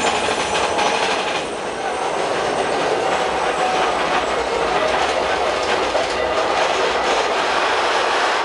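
Big Thunder Mountain Railroad mine-train roller coaster running along its track in a tunnel, its cars and wheels rattling and clattering steadily.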